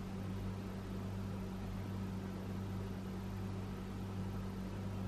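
Room tone: a steady low hum with a faint even hiss, unchanging throughout.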